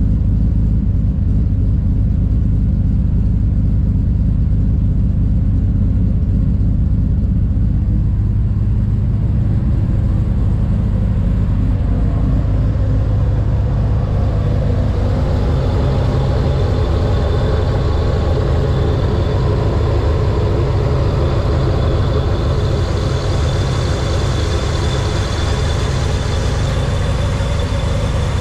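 Ford SVT Lightning's supercharged V8 idling steadily with a low, even exhaust note, heard first at the dual exhaust tips. About halfway through it is heard from the open engine bay, where the sound gets brighter and a thin, steady high whine joins the idle.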